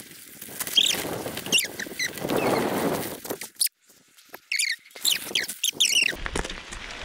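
Mountain bike rolling down a dry dirt trail: rushing tyre and wind noise with many short, high squeals that slide in pitch, from the disc brakes being dragged on the descent. The sound breaks off briefly near the middle, then the squeals return.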